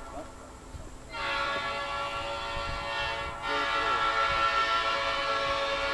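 Old-cast Nathan Airchime P5 five-chime train horn sounding one long blast, starting about a second in. The chord gets louder about halfway through.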